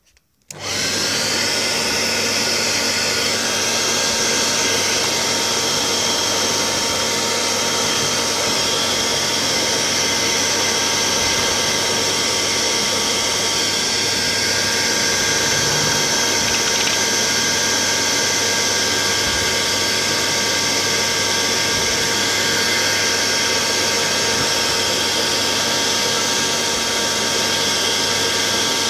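Handheld hairdryer switched on about half a second in and running steadily: an even whir of its motor under a strong rush of air.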